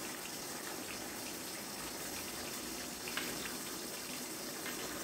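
A pan of sautéed mini cucumbers and tuna simmering on low heat: a steady sizzling hiss. A few light scrapes of a spatula against the pan come in the second half.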